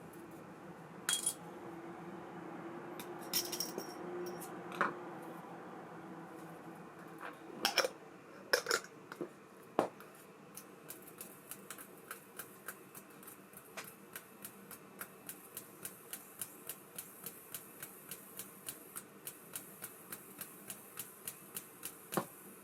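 ABU Ambassadeur 5500C baitcasting reel being handled and worked: a few sharp metallic clicks and a faint steady whir, then an even run of light ticks, about four a second.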